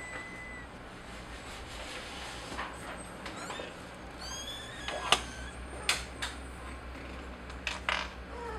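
Kittens giving a few brief, high squeaks as they nurse and clamber over their mother cat, with several sharp clicks in between, the loudest about five seconds in.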